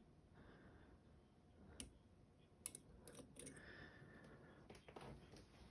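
A few faint, scattered clicks of lock picking tools working inside a Caveo TS007 euro cylinder lock, setting its sliders and pins.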